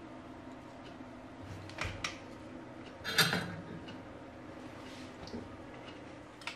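Workbench handling noise over a low steady hum. There are a couple of light clicks about two seconds in, then one sharp clatter about three seconds in, the loudest sound here, as something hard is put down on the wooden desk.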